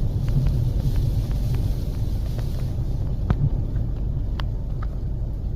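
Strong wind buffeting the microphone in a steady low rumble, over the hiss of big waves on Lake Michigan, with a few light ticks.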